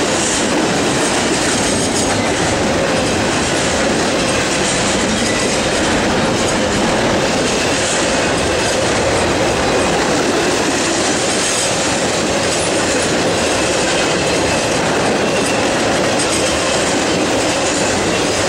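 Intermodal freight train cars rolling past: a steady clatter and rumble of steel wheels on the rails, container well cars and trailer-carrying flatcars going by one after another.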